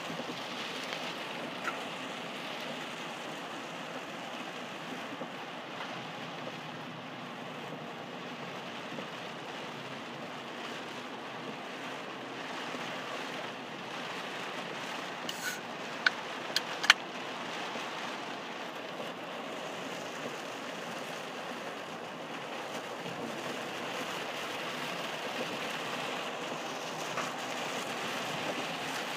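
Heavy rain on a moving car's windshield and body, heard from inside the cabin, blended with the steady hiss of tyres on a flooded road. A handful of sharp clicks a little past halfway.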